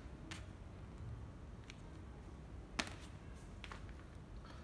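A few faint clicks and light taps from cordless drills being handled, with one sharper knock just before three seconds in.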